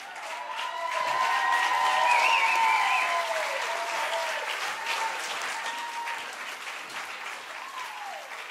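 Audience applauding and cheering with shouts and whoops. The applause swells about a second in and slowly fades toward the end.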